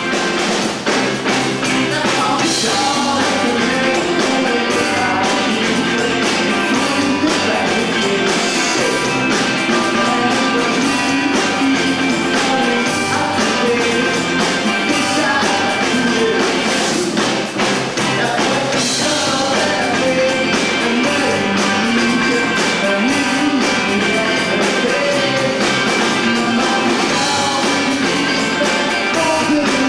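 Rock band playing live: electric guitars, bass and drums, with a singer's voice at times.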